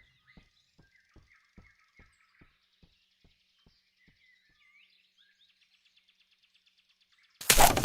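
Faint birds chirping, with a soft regular ticking about two and a half times a second that fades away, then a sudden loud crash near the end.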